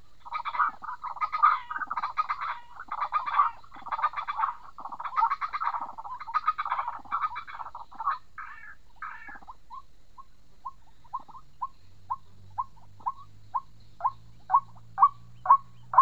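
White-breasted waterhen (ruak-ruak) calling. First comes a run of harsh, croaking calls. From about ten seconds in these give way to short single notes, about two a second, that grow louder.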